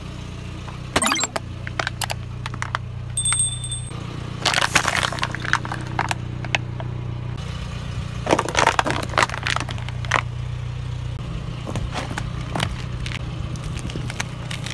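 A car tyre rolls slowly over plastic objects and crushes them, with several bursts of cracking, snapping and crunching plastic over the steady low hum of the car's idling engine.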